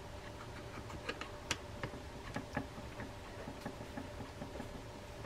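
Faint, irregular light ticks and clicks of a screwdriver turning a small screw in a fishing reel's side plate, the strongest about a second and a half in.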